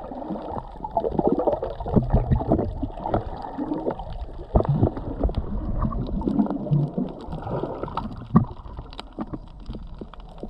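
Muffled underwater gurgling and bubbling of water while snorkeling, with frequent small clicks and pops.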